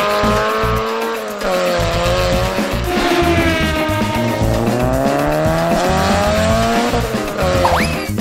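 A car engine revving up and down in long, slow swells, over background music.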